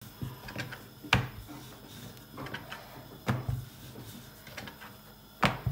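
Wooden rolling pin rolling out chapati dough on a board, knocking sharply three times about two seconds apart, with lighter taps and a low rolling rumble between; the last knock near the end is the loudest.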